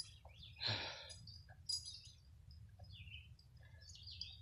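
Quiet woodland ambience with scattered faint bird chirps. A short breathy exhale comes under a second in, over a low steady rumble of wind or handling on the microphone.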